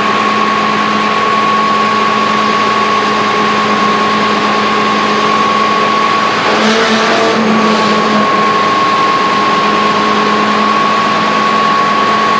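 Fire truck pump and its diesel engine running steadily at pumping speed, with a steady high whine over a lower hum. About seven seconds in there is a brief surge of hiss and the pitch wavers. The uploader labels this cavitation.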